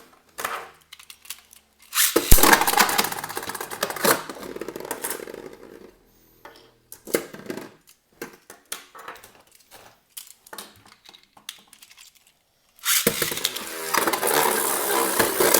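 Beyblade Burst spinning tops clattering and clashing in a plastic stadium. There is a sharp hit about two seconds in and a few seconds of loud rattling, then a stretch of scattered small clicks, then another loud spell of clattering near the end.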